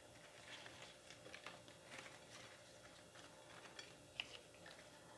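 Faint crinkling and soft clicks of a fresh banana leaf being folded and rolled by hand, with one sharper tick about four seconds in.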